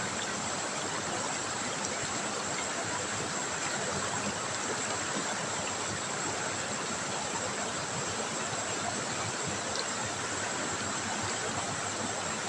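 River water trickling and flowing, a steady even rush with no breaks.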